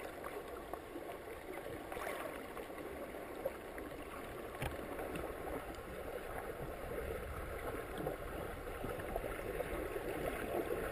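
Underwater ambience picked up by a GoPro in its waterproof housing: a steady, muffled hiss of moving water with scattered faint clicks.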